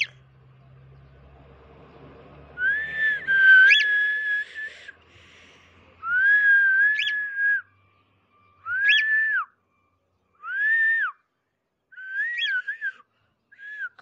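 Cockatiel whistling: a string of short whistled phrases with pauses between them, starting about three seconds in. Each phrase is a held or gently arching note, several with a quick rising chirp.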